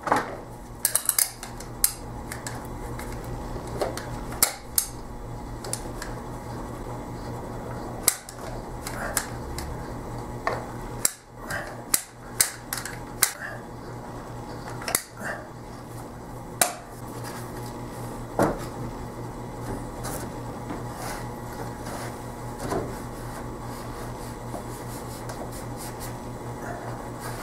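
Manual caulking gun clicking as its trigger is squeezed and the plunger rod ratchets forward to push out caulk. The sharp metallic clicks come at irregular intervals and thin out in the last third, over a low steady hum.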